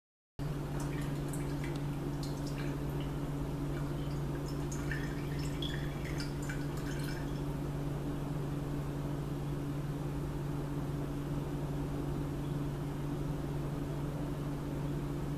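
Liquid dripping and trickling in small scattered drops for the first half, then stopping, over a steady low electrical hum.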